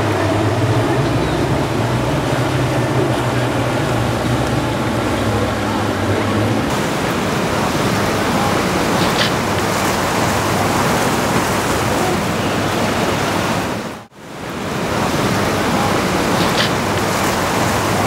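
Loud, steady rush of wind and surf, with a boat engine's low hum under it for the first few seconds. The sound changes abruptly about a third of the way in and drops out briefly near the end.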